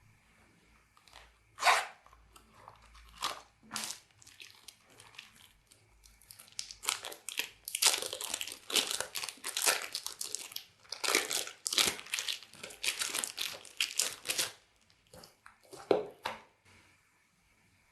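Slime being squished and kneaded by hand close to the microphone, giving off fast crackling and popping. There are a few single crackles at first, then a dense run of crackling through the middle, and two or three pops near the end.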